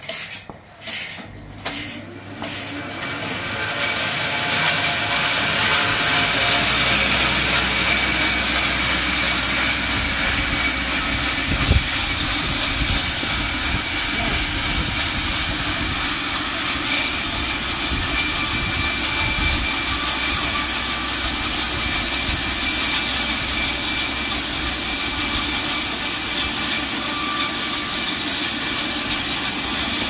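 A 1938 band sawmill running. A few metal clinks at the start, then the machine grows loud a few seconds in and runs steadily, with a steady whine over the noise.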